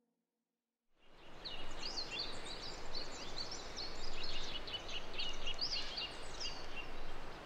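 Several small birds chirping and singing, many short swooping notes overlapping, over a steady rushing outdoor background noise; both begin about a second in.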